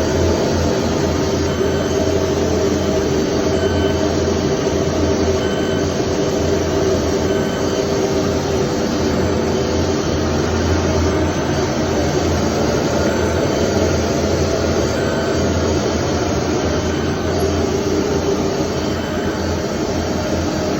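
CNC router with a multi-drill bank running: a loud, steady machine noise over a low hum, with faint short high tones recurring about every two seconds.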